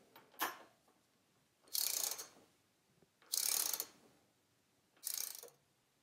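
Ratcheting torque wrench with a 24 mm socket clicking in three short runs as it is swung back and forth, running down the front-axle retaining nut.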